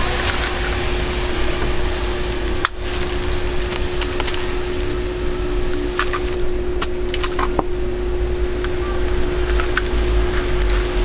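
Cooking-stall noise: a steady hum with one constant tone under it, and scattered sharp clicks and taps, the sharpest about three seconds in.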